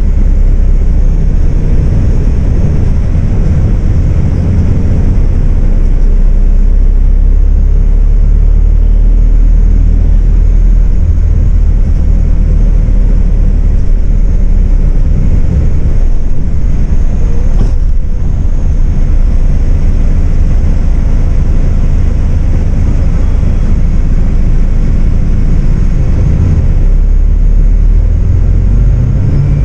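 MAN 18.350 Modulo bus's diesel engine running under way, heard from inside the passenger cabin over steady tyre and road noise. A single sharp knock sounds a little past halfway.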